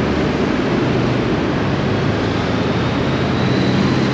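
A motorcycle engine running steadily at low speed in a road tunnel, a low engine hum under continuous road and traffic noise.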